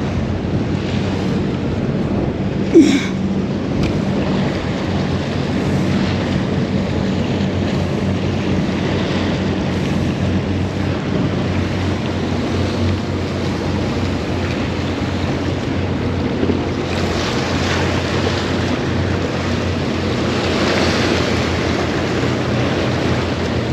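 Surf and wind buffeting the microphone, with a steady low motor hum underneath, likely from a boat in the inlet. A single sharp knock about three seconds in.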